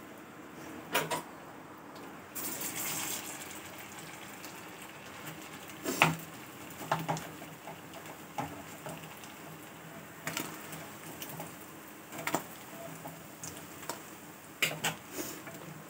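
Sago-and-potato balls (sabudana vadas) sizzling in hot oil in a metal kadai, with a louder spell of hissing about two and a half seconds in. A metal spatula clinks and scrapes against the pan several times, loudest about six seconds in.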